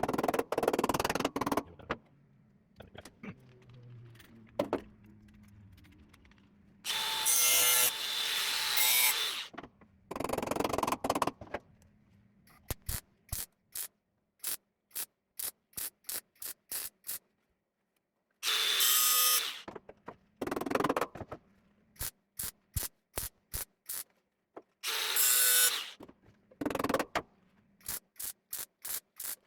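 Metalworking tools on a car door repair panel: several bursts of a power tool lasting a second or two, alternating with runs of short, sharp pulses about three a second.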